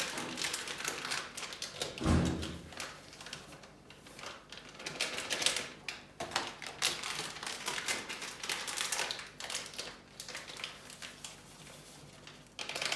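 Foil sachet of whipped-cream powder crinkling and crackling as it is handled and torn open, with irregular clicks and a dull thump about two seconds in.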